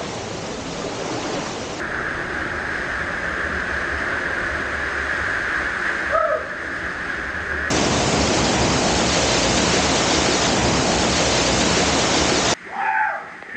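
Small waterfall rushing and splashing into a pool. It changes abruptly about two seconds in and again near the middle, where it becomes a louder, fuller rush, and it drops away suddenly near the end.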